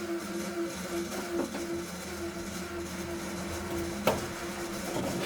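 A small motor hums steadily at two constant pitches, briefly dipping now and then, with a single sharp knock about four seconds in.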